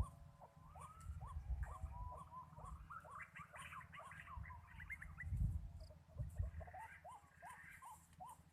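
A bird calling over and over in short, upward-hooked notes, several a second, with a brief burst of higher calls about three seconds in. These fit the repeated 'kru-ak' calls of white-breasted waterhens. A low rumble runs underneath.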